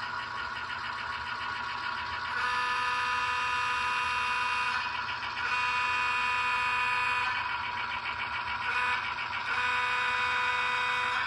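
Sound-equipped model diesel locomotive's multi-chime horn blowing the grade-crossing signal: long, long, short, long. A fast even pulsing runs underneath, heard in the gaps between blasts.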